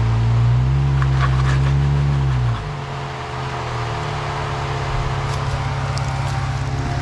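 Jeep Wrangler JL Unlimited Rubicon's engine pulling under throttle as it crawls over rocks. The engine note is held up for about two seconds, then drops back to a lower, steady note, with a few faint clicks.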